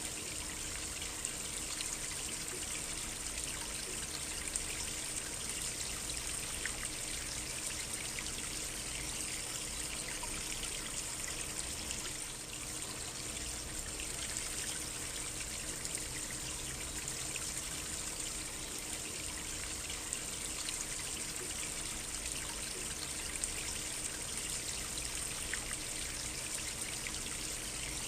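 A small stream flowing and trickling steadily over stones.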